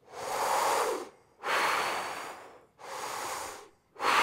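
A man breathing deeply and audibly through an open mouth, four long breaths of about a second each, alternating in and out with short pauses between. It is relaxed, open-throated breathing with not much pressure, as a brass player practises to expand the rib cage.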